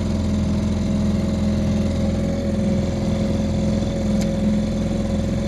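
Small outboard motor running steadily at low speed.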